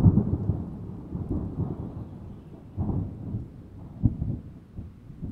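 Thunder rumbling, loudest right at the start, with further rolls about three and about four seconds in.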